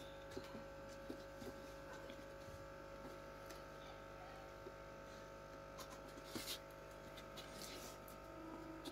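Faint handling noise of a roof being pressed onto a handmade model house: scattered light taps and rustles, a slightly louder rustle about six and a half seconds in, over a steady faint hum.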